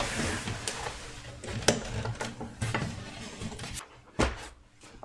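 Irregular sharp clicks and knocks of small hard objects being handled, about one every half second, over a rustle that fades out in the first second.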